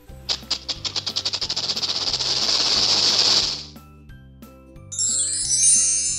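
Rattlesnake rattling: rapid clicks that quicken into a continuous high buzz, growing louder for about three seconds and then stopping, over soft background music. Near the end comes a second of very high, rapid chirping.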